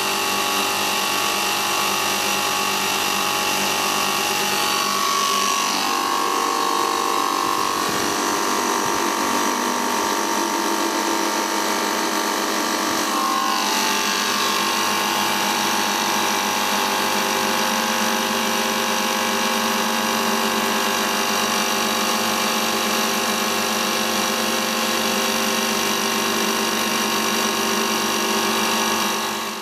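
Condenser fan on a refrigeration condensing unit running steadily, a mechanical hum with several steady tones, its speed governed by a fan speed controller.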